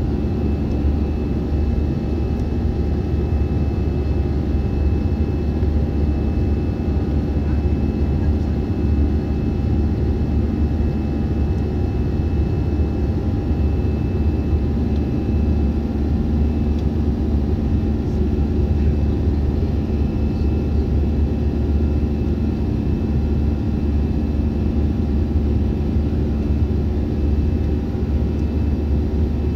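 Steady cabin drone of an Airbus A320's turbofan engines climbing after takeoff, heard inside the cabin at a window seat beside the engine: a deep, even rumble with a few faint, steady whining tones above it.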